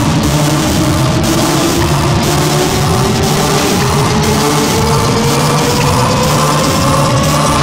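Soundtrack music: a dense electronic track with a steady beat about once a second and a tone that slowly rises in pitch.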